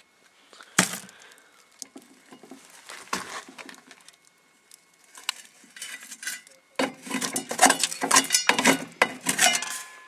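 Clinks and knocks of charred speaker parts being handled and set against a microwave oven's glass turntable: a few separate knocks, then a quick run of clattering over the last three seconds.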